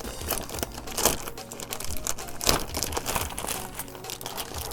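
Packaging crinkling and rustling in irregular bursts, with scattered small clicks and knocks, as the wrapping is worked off a new keyboard.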